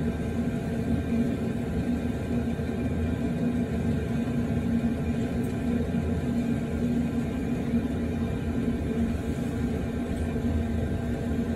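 A steady low hum with a faint whir, the even drone of some machine running, unchanging throughout.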